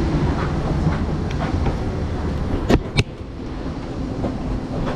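Passengers walking off an airliner onto the jet bridge: a steady low rumble with footsteps and suitcase wheels rolling on the floor, and two sharp knocks close together a little before the three-second mark.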